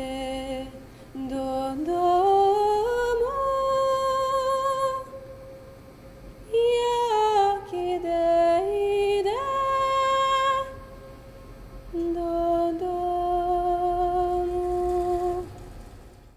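A single voice singing a slow, wordless melody in four phrases of long held notes, sliding up and down between pitches, with short pauses between the phrases.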